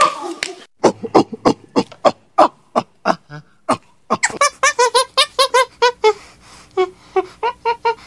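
A monkey giving a rapid series of short, squeaky calls, at about three a second at first, quicker through the middle, then sparser near the end.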